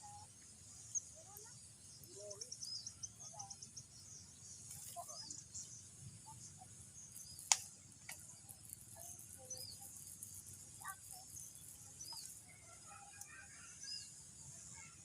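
Swamp ambience: a steady high-pitched insect drone, with a bird's short chirp repeating every couple of seconds and a single sharp click about halfway through.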